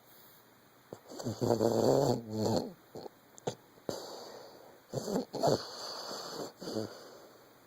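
Vizsla dog snoring in its sleep: a long, pitched snore about a second in, then a couple of short clicks and a few shorter snores near the middle and towards the end.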